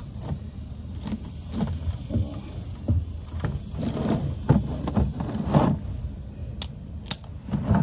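Ratchet and socket on a car's oil drain plug, working it loose: irregular knocks and sharp metallic clicks.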